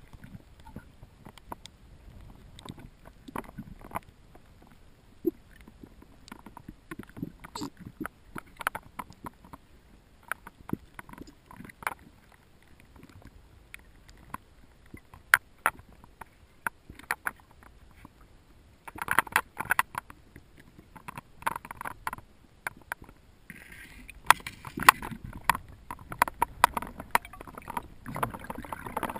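Underwater sound through a wrist-mounted GoPro's waterproof housing: irregular clicks and knocks as the diver's hand and camera work along rock, denser for a moment about two-thirds in and again near the end.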